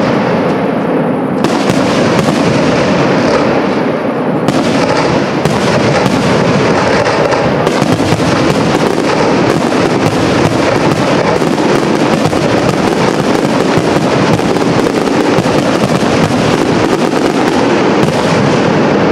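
Aerial fireworks shells launching and bursting in a dense, unbroken barrage of loud bangs and crackle.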